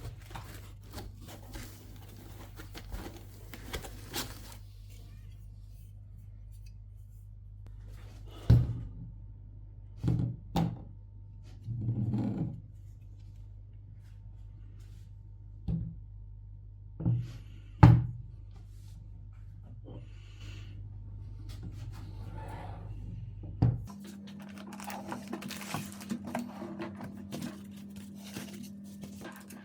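Unboxing a 3D printer: packaging rustles and handled parts are set down with about eight sharp thunks, the loudest near the middle. A steady low hum runs under it and changes abruptly about three quarters of the way through.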